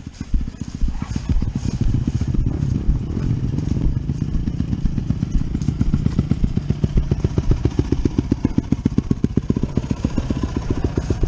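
Dirt bike engine running at low revs as the bike rolls slowly along the trail: a steady, even pulsing of about eight beats a second.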